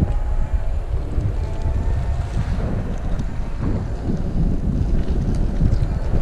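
Wind buffeting the microphone of a camera on a moving 48-volt, 1000-watt electric BikeE recumbent bicycle. A faint whine from the electric motor rises now and then.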